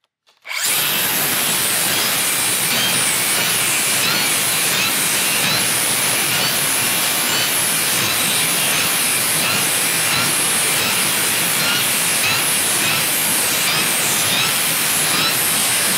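DeWalt cordless circular saw with a Crescent NailSlicer carbide-tipped blade cutting along a board full of nails, starting about half a second in and running steadily without a break. It sounded a little weak on this cut, which the operator puts down to a tiring battery.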